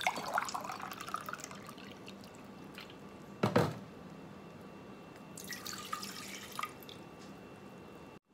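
Water poured from a glass measuring cup into a steel saucepan of sugar, the pour rising in pitch as it lands, then trickling and dripping. A single sharp knock about three and a half seconds in is the loudest sound.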